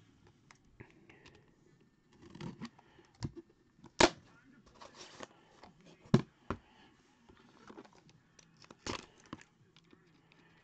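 A Panini National Treasures football card box being opened and its pack handled: rustling, with several sharp clicks and knocks from the lid and box, the loudest about four and six seconds in.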